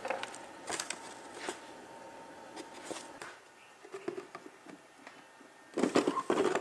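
Cut pieces of PVC sheet being handled: a few light taps and rustles, then near the end a dense run of clattering, scraping plastic as a cut piece is lifted out of a stacked PVC sign cabinet.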